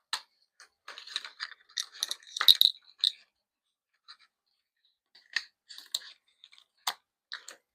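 E-bike display and its plastic mount being handled and fitted on the handlebar: a run of light clicks and rattles, loudest a little over two seconds in, then scattered ticks after a short pause.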